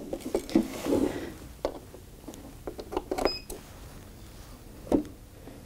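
Scattered clicks, knocks and rustles of a power cord being handled, unplugged and plugged into a portable power station's outlet, with a sharper knock about five seconds in and a brief high tone about three seconds in.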